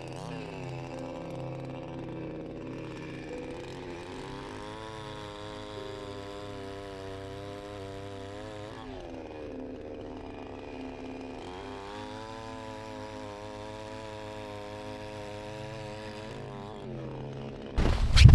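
Chainsaw running and revving up twice, holding high revs for about four seconds each time as it cuts firewood, then dropping back to idle. Near the end a sudden loud rushing noise covers it.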